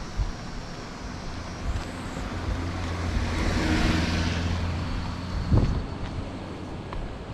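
A small white van drives past, its engine hum and tyre noise swelling to a peak about four seconds in and then fading. A single knock comes near the end.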